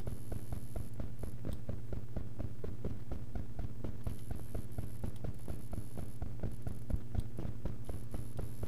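Steady low electrical hum with a rapid, irregular crackle of faint low clicks.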